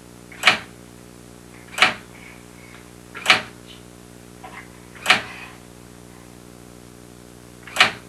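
Electric typewriter keys struck one at a time by a child slowly typing her name: five single, sharp keystroke clacks, irregularly spaced one to three seconds apart, over a steady low hum. The ribbon has been taken out, so the keys strike without printing.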